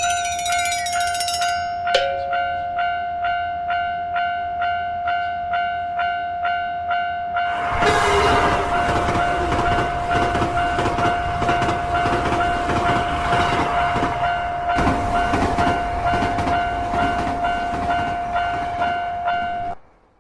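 Railroad crossing warning bell dinging about twice a second over a steady tone, with a click about two seconds in. From about eight seconds in a passing train's rumble and clatter joins the continuing bells. Everything cuts off suddenly near the end.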